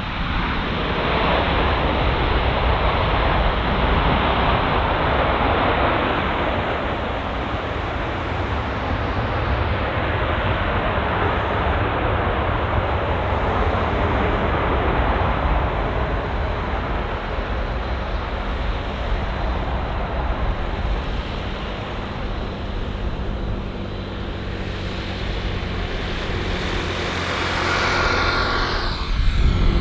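Twin Rolls-Royce BR710 turbofan engines of a Bombardier Global 6000 jet during its landing roll-out and taxi, a steady rushing jet noise with a low rumble. Near the end the engine whine grows louder as the jet turns toward the listener.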